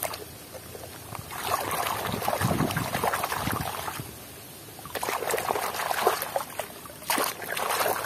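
Muddy water sloshing and splashing in a basin as a hand scrubs a toy vehicle in it. It comes in three spells of swishing with short pauses between.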